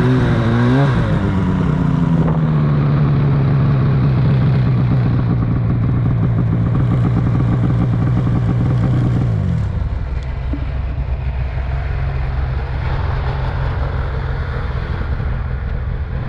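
2008 Arctic Cat F1000 Sno Pro snowmobile's two-stroke twin engine under way: revving up and down briefly at the start, then holding a steady pitch, and dropping to a lower, quieter drone about ten seconds in.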